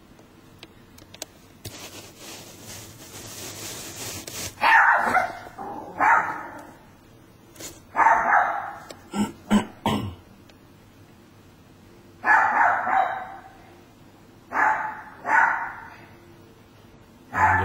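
A dog barking repeatedly: about a dozen loud, sharp barks, some single and some in quick runs of two or three, starting about a quarter of the way in.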